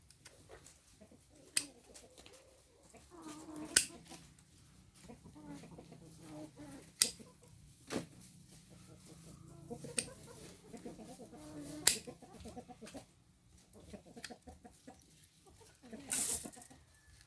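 Chickens clucking softly, with a sharp click every second or two and a brief rustling burst near the end.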